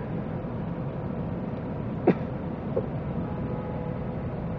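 Low steady rumble of jammed traffic in a road tunnel, heard from inside a car. Faint car horns sound in held tones in the distance, with one brief sharp sound about two seconds in.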